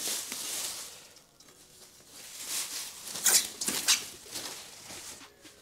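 Clear plastic protective sheet crinkling and rustling as it is pulled off a wire wheel, in bursts with a quieter gap in between; the loudest crackles come a little past the middle.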